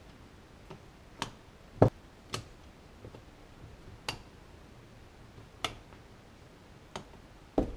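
Irregular sharp metallic clicks and knocks as a long metal rod tool is worked into and against a Honda Astrea (Cub-type) engine's aluminium crankcase. The loudest knocks come about two seconds in and again near the end.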